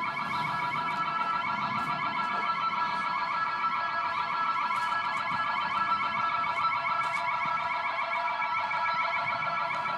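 Building security alarm siren going off: a continuous, fast-warbling electronic tone that holds steady, the sign of a triggered intrusion alarm.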